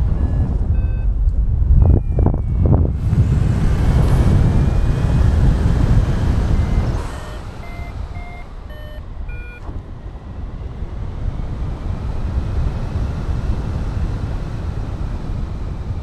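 Airflow rushing over the action camera's microphone in paraglider flight, strong for about seven seconds and then noticeably weaker. Short electronic variometer beeps at shifting pitches sound near the start and again around eight to nine seconds in, the vario's signal that the glider is climbing.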